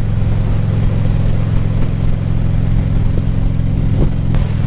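Harley-Davidson Ultra Classic Limited's V-twin engine running steadily at cruising speed, with road and wind noise.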